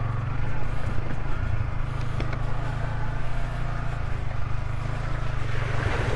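Yamaha Vixion motorcycle engine running at low, fairly steady revs, with a haze of riding noise over it.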